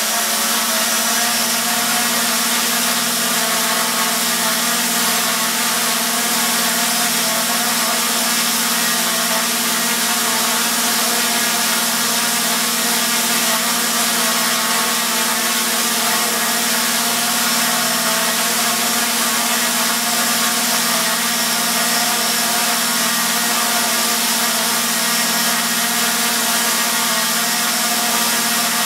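Quadcopter's four Sunnysky X2212 980Kv brushless motors running at a steady part throttle, drawing about 10 amps: an even, unchanging motor whine with a strong low hum under it.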